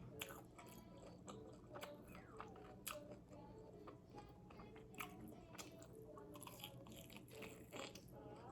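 Close-up biting and chewing on extra-crispy fried chicken, with sharp crunches every second or so.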